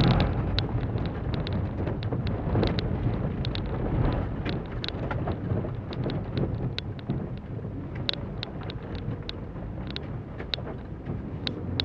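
Inside the cabin of a 2006 Holden Barina driven hard on a khanacross course: the four-cylinder engine runs under load over a steady rumble of tyre and road noise. Many short, sharp ticks of gravel striking the car's underside run through it.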